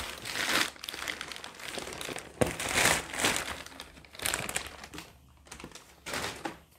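Plastic courier mailer bag crinkling in irregular bursts as a cardboard box is pulled out of it, with a single knock about two and a half seconds in.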